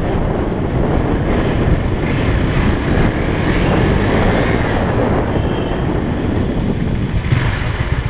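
KTM Duke 390's single-cylinder engine running as the motorcycle rides slowly, with wind rumbling on the microphone.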